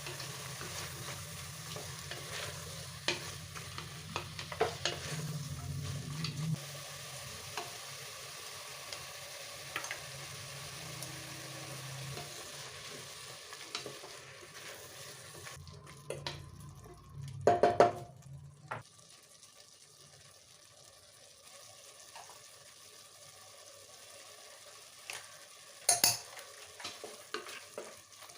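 Vegetables sizzling as they fry in a cooking pot, stirred with a spoon that clicks and scrapes against the metal. A loud metallic clang comes about two-thirds of the way through. A low hum stops soon after it.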